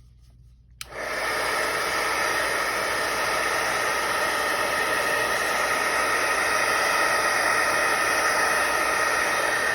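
A craft heat tool (embossing heat gun) switches on about a second in and blows with a steady hiss, then shuts off near the end, heat-setting stamped ink on a card.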